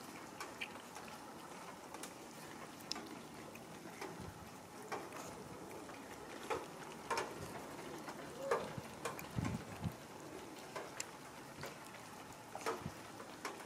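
Cats eating wet food from plastic tubs: irregular wet chewing and smacking clicks over a faint steady background hiss, with a dull low thump about nine and a half seconds in.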